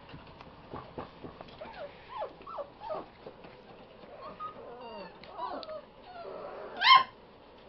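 A litter of five-week-old puppies whimpering and yipping: many short, overlapping squeaks that bend up and down in pitch, with one loud yelp near the end.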